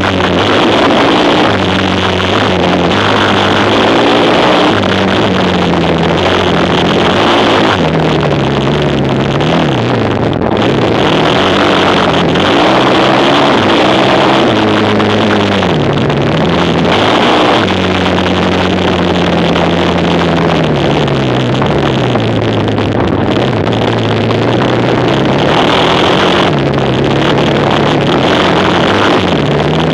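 Quad bike engine racing, its pitch rising and falling again and again as the throttle opens and closes and it shifts gear.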